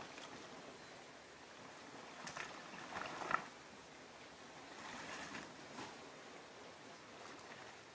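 River current flowing steadily over shallows, with brief rustling and knocking from handling gear on the rocks at the water's edge, the sharpest knock just after three seconds in and another short cluster around five seconds.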